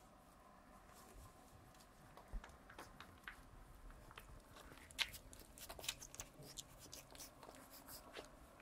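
Faint, irregular small clicks and rustles from a litter of two-and-a-half-week-old Cirneco dell'Etna puppies moving about, sparse at first and busier from about halfway.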